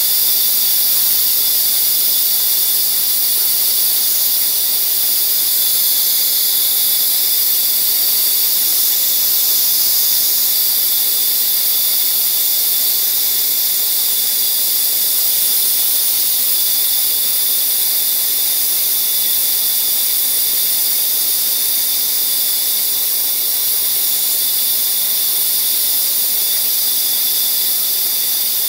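Band saw running with its blade cutting a small block of hardwood fed by hand: a steady, high-pitched hiss.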